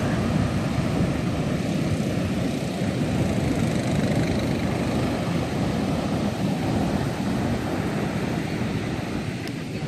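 Heavy ocean surf breaking offshore and washing up a sand beach, a steady low rush of water.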